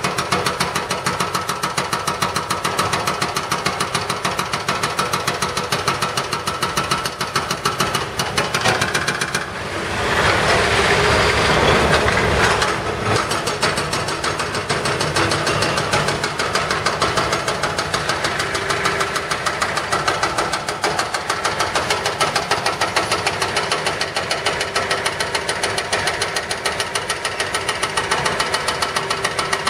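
Hydraulic breaker on an excavator hammering concrete pavement in rapid, even blows, over running diesel engines. About ten seconds in, a louder rushing noise swells for a few seconds.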